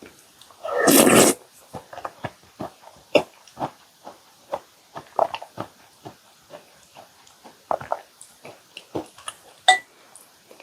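Close-miked eating sounds of chocolate chip cookies soaked in milk being chewed: a string of short wet clicks and smacks, with one loud half-second burst about a second in.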